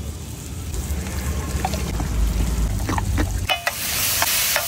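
Sliced onions sizzling on a large flat street-stall griddle while a metal spatula stirs and scrapes them, with a few sharp clicks of the spatula on the metal. The sizzle becomes loud about three and a half seconds in, over a low rumble in the first part.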